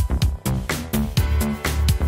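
Background dance music with a steady beat and heavy bass, about two beats a second.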